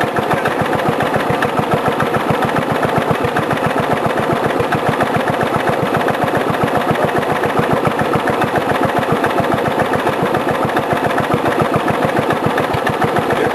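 Riding lawn mower engine turned down to a very slow idle, chugging along with each firing stroke heard as a separate, even pulse, about five a second, running steadily without stalling.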